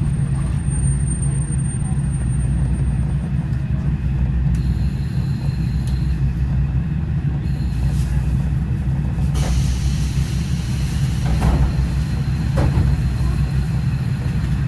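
Interior of a KiHa 40/47 diesel railcar under way: the diesel engine's steady low drone, with a few sharp clacks in the second half.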